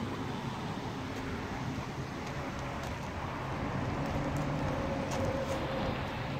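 Steady traffic and vehicle noise, with a faint tone coming in for a couple of seconds about four seconds in.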